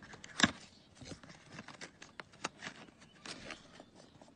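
A cardboard medicine carton handled and opened close to a phone microphone: one sharp tap about half a second in, then a run of clicks, scrapes and rustles of the cardboard and its contents.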